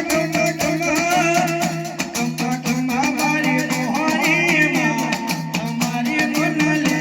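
Live Gujarati dakla devotional folk music: a voice sings an ornamented, wavering melody over fast, steady drum beats and sustained low accompaniment notes that step from one pitch to another.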